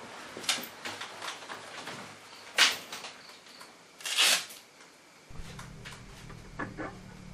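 Cloth rustling and soft handling noises as a dark jacket and small cloth items are pulled and folded, with a few brief louder rustles. A low steady hum comes in about five seconds in.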